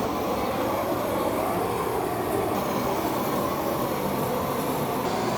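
A propane torch flame running steadily as it chars a carved cedar surface.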